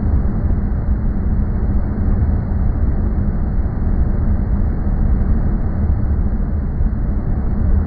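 Loud, steady, low rumbling noise, deepest and strongest at the bottom, with a thin high hiss above it and a few faint ticks.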